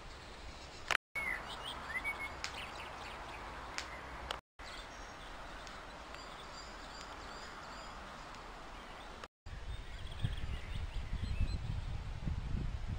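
Outdoor ambience with small songbirds chirping and trilling over a steady hiss, broken by brief dropouts where the sound cuts out. In the last few seconds an uneven low rumble rises under it.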